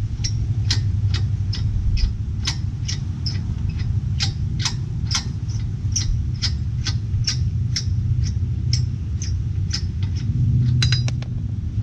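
Lug nut being spun off a wheel stud by hand, clicking evenly about two to three times a second, then a short ringing metallic clink near the end as it comes off. A steady low rumble runs underneath.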